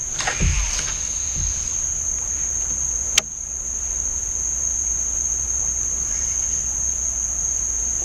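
Steady high-pitched drone of insects, such as crickets or cicadas, in the riverside trees. A single sharp click comes about three seconds in.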